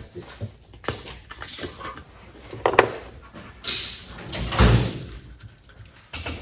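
Handling noises on a workbench: rustling and scraping, a sharp click about three seconds in and a dull thump a second and a half later.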